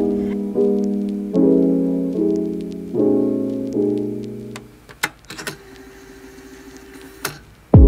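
Background music of piano-like keyboard chords, changing roughly every second. About halfway through the music drops away, leaving a few sharp clicks and a faint steady tone, and it comes back in right at the end.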